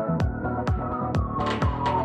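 Electronic dance music with a steady kick drum about twice a second and a synth tone sliding slowly downward; a hissing sweep builds near the end.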